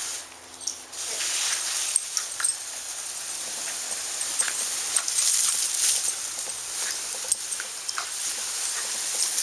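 Garden hose spray hissing and spattering onto grass while a wire fox terrier jumps and bites at the stream, with many small sharp splats and ticks throughout.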